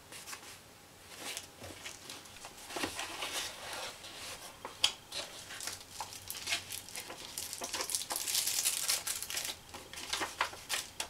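Cardboard packaging, a paper leaflet and a plastic bag being handled and unpacked: uneven rustling and crinkling with scattered clicks, a sharp snap about five seconds in, and the densest crinkling near the end.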